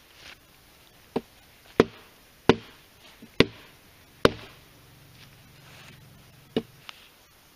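A hatchet chopping into a log: about six sharp, uneven strikes roughly a second apart, with a longer pause before the last one and a lighter tap just after it.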